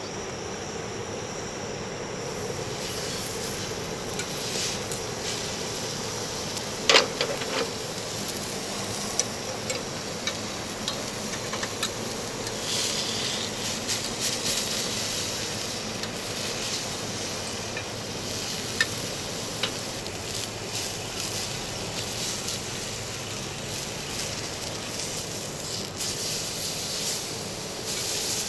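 Thick steak sizzling and crackling on a hot griddle plate over a gas camping stove, with one sharp clack about seven seconds in.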